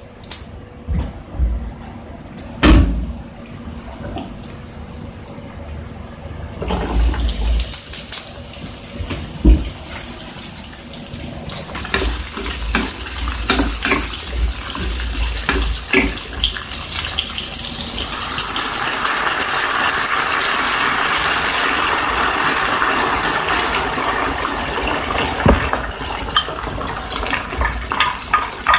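Garlic, red chili and then green beans frying in olive oil in a frying pan, starting quietly and sizzling loudly from about a quarter of the way in, with the knocks and scrapes of a wooden spatula stirring them. In the second half, pasta cooking water is poured into the hot pan and rushes and bubbles for several seconds.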